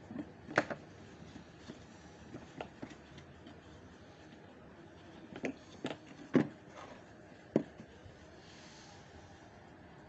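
Hard plastic toy refrigerator being handled by hand: a scattering of sharp clicks and knocks, about six in all. The loudest come about half a second in and around six and a half seconds.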